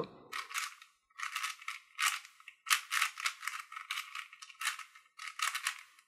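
Plastic 4x4 speedcube being turned quickly by hand: runs of clicky, rattling layer turns in about seven short bursts with brief pauses between.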